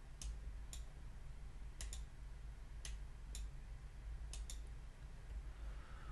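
Computer mouse clicking: a handful of sharp single clicks and quick double clicks, spaced about half a second to a second apart, over a low steady hum.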